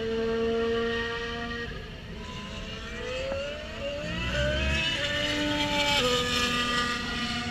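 Race car engines circulating on the track: one engine holds steady revs, then one accelerates hard, its pitch climbing and dropping back with each upshift, about four seconds in and again near the end.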